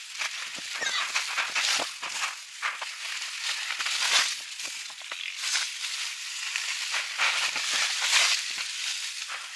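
Dry corn stalks and straw crackling and rustling close by in irregular bursts.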